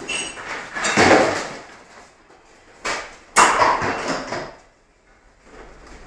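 Heavy seas slamming into a ship in a storm, heard from inside the bridge: two surges of crashing, rushing water, with a sharp knock just before the second, louder one.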